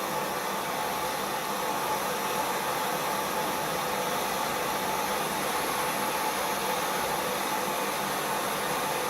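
Hand-held soldering torch flame hissing steadily while heating the threaded end of a shower valve's copper joint. The joint is not yet hot enough to take the solder.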